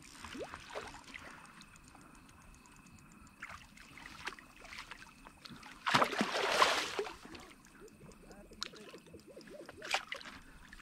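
Water splashing at the surface: a few small splashes, then one louder splash lasting about a second a little past the middle, and a short one near the end.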